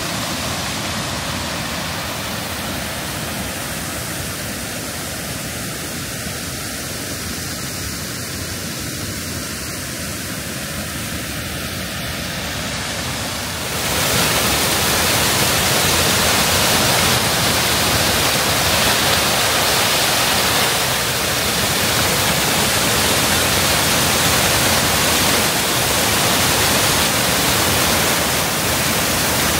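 Waterfall rushing over rock, a steady loud roar of falling water that jumps louder and brighter about halfway through as it is heard close up.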